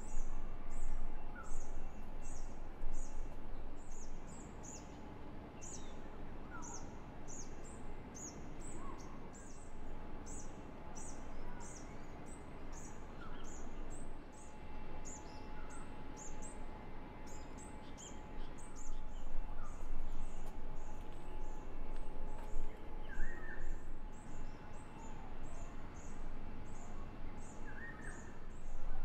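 High-pitched bird chirps repeating about twice a second, with a few lower calls scattered among them, over a steady low background hum and a faint steady tone.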